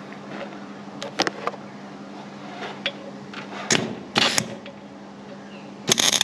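MIG welder arc on steel: a few short crackling bursts as the arc is struck briefly, then a louder, steady crackling arc starts near the end as the weld is run. A steady low hum sits under it throughout.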